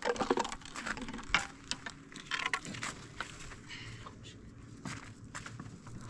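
Irregular knocks, clicks and scrapes of sticks of firewood being handled and pushed into a cinder-block stove, loudest in the first half second.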